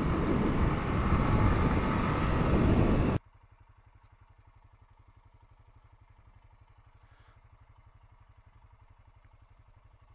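Honda Foreman 520 ATV's single-cylinder engine running as the quad rides along, cut off abruptly about three seconds in. After that only a faint, fast, even low pulsing remains.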